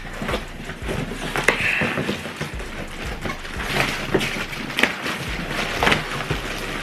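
Handling noise from unpacking and setting up a ring light: rustling with a few sharp clicks and knocks as packaging and parts are moved.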